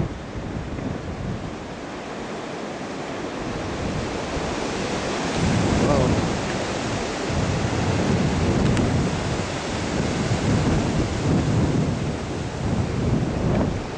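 Strong wind gusting through oak trees, a rushing hiss that swells and eases, with the gusts buffeting the microphone in low rumbles.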